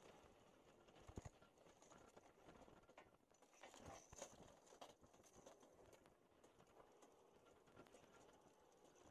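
Near silence, with faint scattered knocks and clicks.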